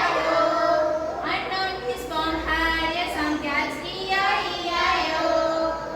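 Children's voices singing a song, with held notes that slide from one to the next.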